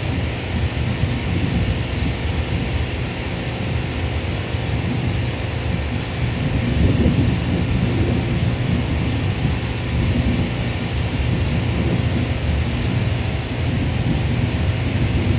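Steady low rumble of airliner jet engines as the jet rolls along the runway.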